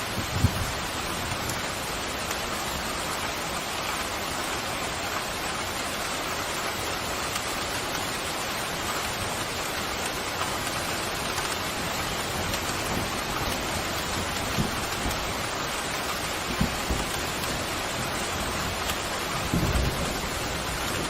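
Steady heavy rain with thunder rumbling low a few times, a longer roll starting near the end.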